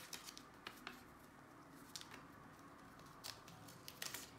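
Faint, scattered crinkles and ticks of protective paper backing being peeled off a strip of kinesiology tape, with the loudest cluster about four seconds in.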